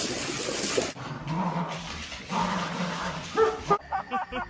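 A dog whining and yipping, with a loud steady hiss over the first second.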